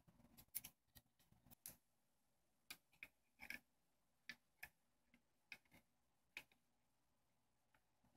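Faint, irregular small clicks and ticks, about a dozen, of metal tweezers and a small screwdriver prying open the plastic flip-lock ribbon-cable connectors on a Nikon Coolpix L820's circuit board; the loudest comes about half a second in.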